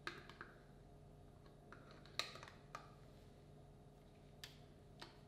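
Hand-held can opener being worked on a can: a few faint, sharp metallic clicks, the loudest a little after two seconds in, with a couple more near the end.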